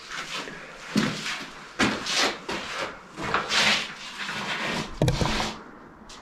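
Scuffing, crunching footsteps and shuffling on a grit-covered concrete floor in a small concrete room, with a few sharp knocks among them, one about a second in and another about five seconds in.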